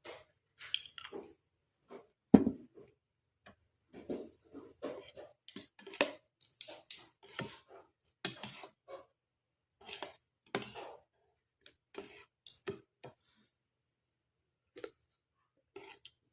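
Spoon and fork clinking and scraping against a bowl of bakso meatball soup while eating, with chewing, in a run of short separate clicks and knocks. One sharp knock stands out about two seconds in; the knocks are busiest in the middle and thin out near the end.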